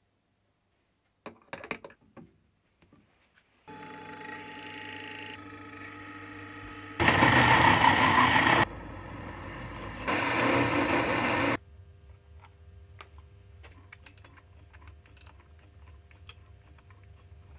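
A few metal clinks as the workpiece is set in the vise, then a small milling machine's spindle motor running with a steady whine, louder in two stretches as the drill cuts into the metal boring-head body. Near the end the motor stops, leaving a faint hum and small ticks.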